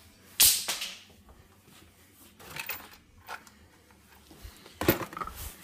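Objects being handled on a workbench: two sharp clatters, about half a second in and again near the end, with a few soft knocks between.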